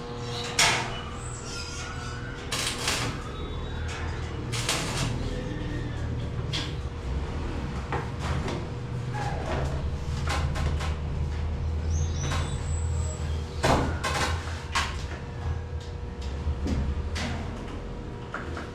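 Irregular knocks and clatter of building work over a steady low hum.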